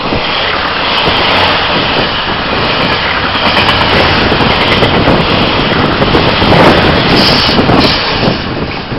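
Passenger train passing close by, the loud rolling clatter of its carriages over the rails, starting suddenly as it reaches the microphone.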